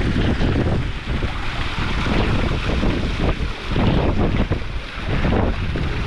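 Strong mountain wind blowing hard against the microphone, a loud buffeting rush that swells and dips in gusts.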